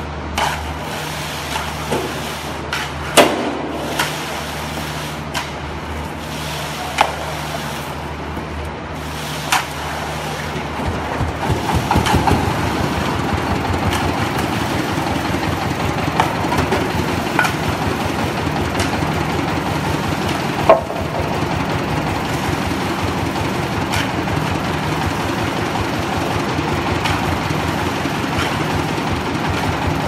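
Engine of a truck concrete mixer pump running steadily, then turning louder and rougher with a pulsing note about a third of the way in. A few sharp metal clanks of a shovel against the steel hopper ring out over it, the loudest about two-thirds of the way through.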